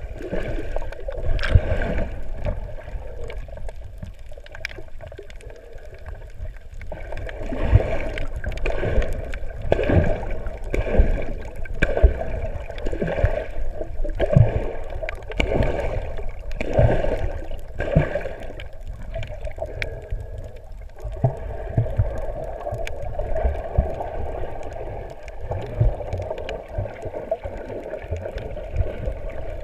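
Water gurgling and sloshing, heard muffled through an underwater camera, in irregular surges with scattered soft knocks and clicks.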